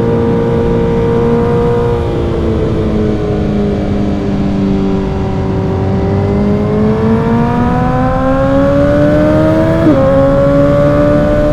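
Suzuki GSX-R1000's inline-four engine through an M4 aftermarket exhaust, riding: the engine note eases off slightly, holds, then climbs steadily under acceleration before dropping sharply at a gear change near the end and rising again. A steady rush of wind and road noise runs underneath.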